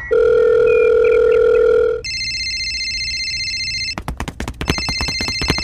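Telephone sound effects: a steady dial tone for about two seconds, then a higher ringing tone. The ringing is broken by a rapid run of clicks about four seconds in, then resumes.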